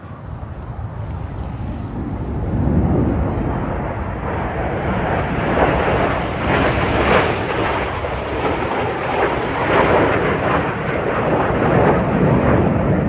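Red Arrows BAE Hawk jets flying over, their turbofan noise swelling over the first few seconds and then staying loud and rough.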